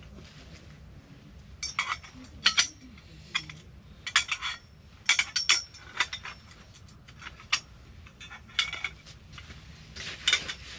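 Dishes and metal utensils being handled, giving a string of irregular clinks and clatters with short ringing.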